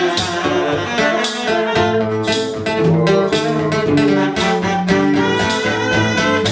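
Music with guitar and bowed strings, held notes over regular strummed or plucked strokes.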